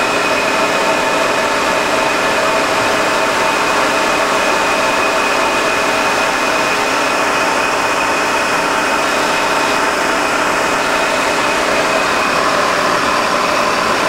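Myford MG12-HA hydraulic cylindrical grinder running with no work being ground: a steady machine hum with several steady whining tones from its motors and hydraulics.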